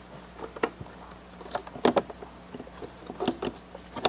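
Scattered light clicks and taps as hands press and settle the Panasonic Toughbook CF-30's front cabinet onto its rear cabinet, with about half a dozen separate clicks, the sharpest about two seconds in.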